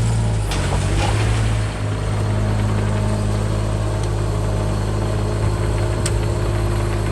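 Doosan DX27z mini excavator's diesel engine running steadily, with a brief dip in level and a slight change in engine note just under two seconds in.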